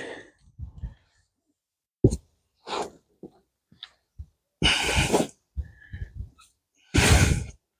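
Soil with potato plants being tipped out onto the ground: a few short rustling, pouring bursts, the two loudest about halfway through and near the end.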